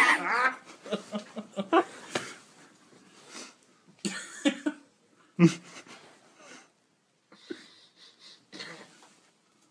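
A person's breathy, wheezing laughter in short bursts, with a few muttered sounds between them, thinning to faint breathy snatches in the last few seconds.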